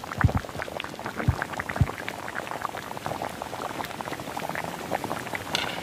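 Pot of coconut-milk stew with breadfruit and coco at a hard boil, a steady crackle of bursting bubbles, with a few low thuds in the first two seconds.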